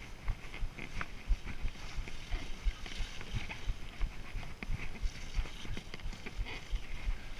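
Mountain bike rolling fast down a rough dirt trail: a steady run of irregular knocks and rattles as the bike jolts over roots and bumps, over tyre noise.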